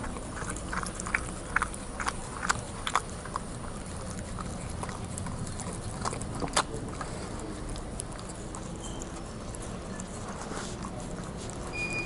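A small dog licking and chewing food out of a glass bowl, its tongue and teeth making sharp clicks against the glass. The clicks come thickest in the first few seconds, with another loud one about six and a half seconds in.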